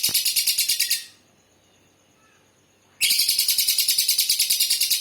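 Lovebird singing in long, rapid trills of harsh, evenly repeated high notes, about a dozen a second: a one-second run at the start, then after a pause a second run of about two seconds.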